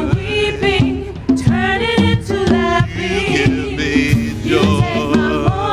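Live worship song: band music with a steady beat, and voices singing over it.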